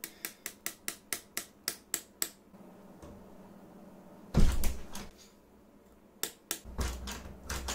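Lever handle of a locked interior door being worked up and down over and over, the latch clicking about four or five times a second. About four seconds in the door takes a loud thump, and near the end the clicking and rattling start again.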